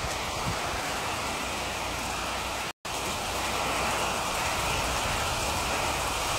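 Heavy typhoon rain pouring steadily onto foliage and a flooded yard, an even hiss. The sound cuts out for an instant a little under halfway through.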